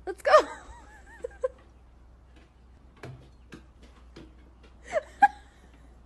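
Golden retriever whining in high-pitched whimpers, once near the start and again about five seconds in, with a few light taps of its paws on the wooden steps in between.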